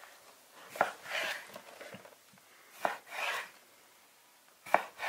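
Chef's knife cutting cuttlefish fillets into strips on a plastic cutting board: three cuts about two seconds apart, each a sharp knock of the blade on the board followed by a short rasp.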